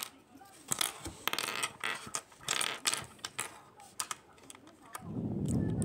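Small plastic Kinder toy parts and a paper slip being handled close up: a run of irregular clicks and crackles as the pieces are pressed together. A louder, dull rubbing rumble of hands against the surface comes in near the end.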